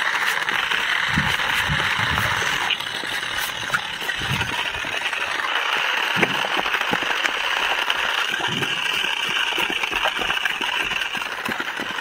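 Toy remote-control car driving: its small electric motor and gears whirring steadily, its plastic tyres rattling over rough, gritty concrete with scattered small ticks and knocks.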